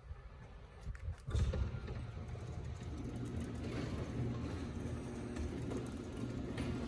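A garage door opener starts up about a second in and runs steadily, its motor humming as it drives the door along the rail.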